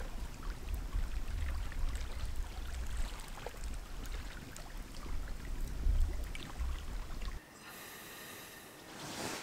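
Campfire burning, crackling with scattered sharp pops over a low rumble. About seven seconds in it cuts off to a quieter hiss, with a brief rustle near the end.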